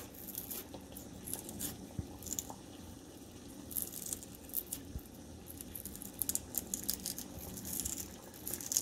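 Serrated knife digging and scraping into raw potato flesh, a run of small irregular crunches as a hole is hollowed out. Boiling water hisses faintly and steadily underneath.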